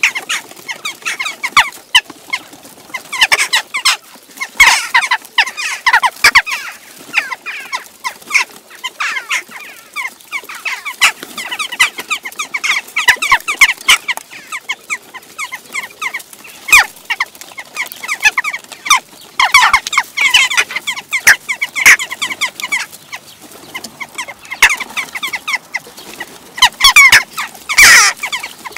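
A flock of western jackdaws calling all at once: many overlapping short, sharp calls coming in waves, loudest near the end, the sound of the birds squabbling among themselves.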